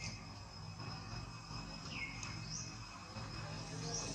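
Outdoor ambience: a steady high insect drone, with a few short, high, curved chirping calls at the start, about two seconds in and near the end, over a low steady hum.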